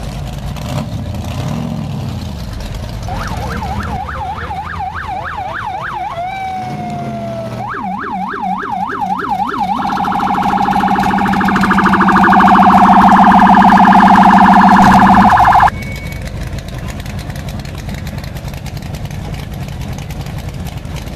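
Police-style electronic siren yelping in fast rising-and-falling wails, twice, then switching to a loud steady blaring tone for about six seconds that cuts off suddenly. Under it the Corvette C3's V8 idles with a low rumble.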